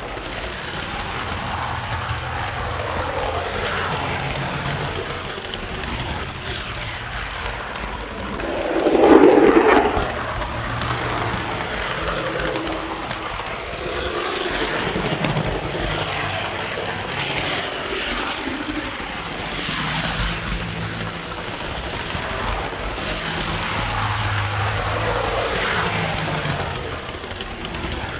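Model train running along the track: wheels on the rails and the locomotive's motor, heard from a car coupled right behind the locomotive, with a brief louder swell about nine seconds in.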